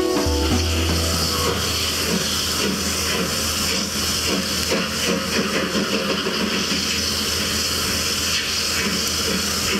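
Steam locomotive hissing steadily as steam escapes, with a steady low hum underneath.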